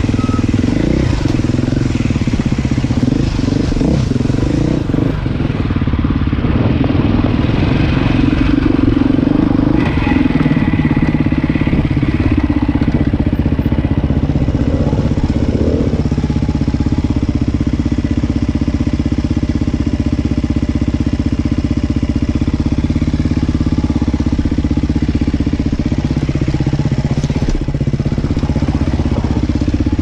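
Off-road vehicle's engine running on a rocky trail, its pitch rising and falling in the first half as the throttle changes, then holding steadier, with rattling over the rough ground.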